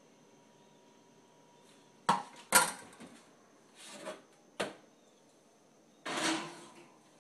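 Metal cookware clanking on a stovetop: several sharp knocks of a ladle and a baking pan being handled, then a longer scrape about six seconds in as the pan is slid onto the oven rack.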